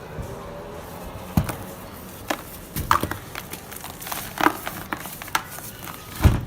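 Dry red dirt chunks crunching and cracking as they are crumbled, an irregular series of sharp crunches with the loudest near the end.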